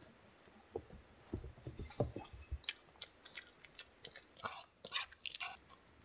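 Small dog eating from a metal camping cup: irregular chewing and crunching, a quick run of short clicks and smacks.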